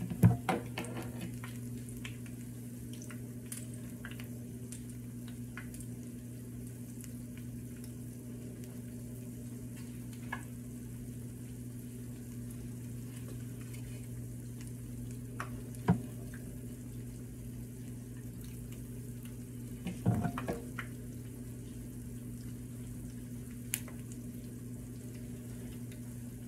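Conch fritter batter frying in oil in a pan: a steady sizzle over a steady low hum. A few sharp knocks break in, one right at the start, one about two-thirds of the way through and a short clatter soon after.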